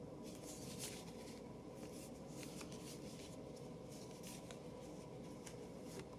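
Tarot cards being handled: faint papery swishes and light ticks, irregular, as cards slide against one another and are laid down, over a steady low room hiss.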